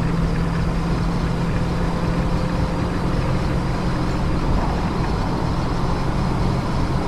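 Car engine drone and road noise heard from inside the cabin while driving at a steady speed.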